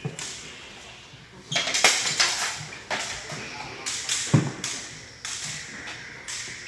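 Practice swords and bucklers striking each other in quick drill exchanges: a run of sharp knocks and clacks with a short ringing tail, thickest about two seconds in, and a heavier thud just after four seconds.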